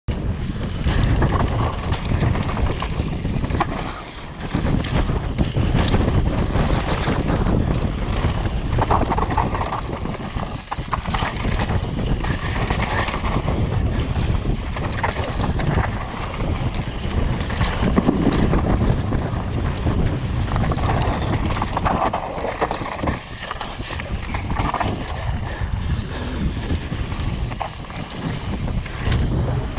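Wind rushing and buffeting over the microphone of a camera riding along on a downhill mountain bike descent, with scattered knocks and rattles from the bike over rough trail.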